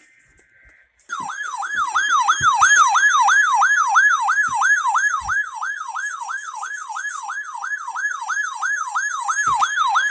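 Emergency alert attention signal: a loud electronic siren-like tone sweeping up and down in pitch about three times a second. It starts about a second in.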